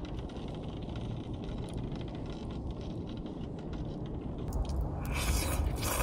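Small wood-burning box stove fire with a low steady rumble and faint scattered crackles. About five seconds in, a louder rushing sound of noodles being slurped.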